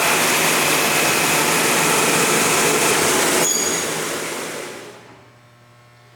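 Timesaver 137-2 HD dual-head wide belt sander running with a loud, steady hiss; about three and a half seconds in it is switched off and winds down, dying away to a faint low hum within about two seconds.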